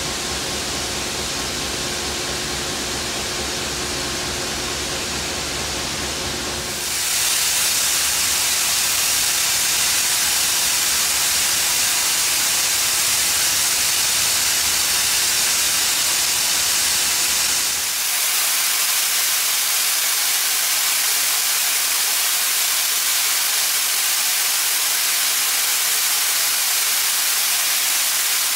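A diesel locomotive idling with a steady low hum, then from about seven seconds in a loud, steady hiss of steam venting from steam locomotive 3801 takes over. The low engine hum drops away about two-thirds of the way through, leaving the hiss alone.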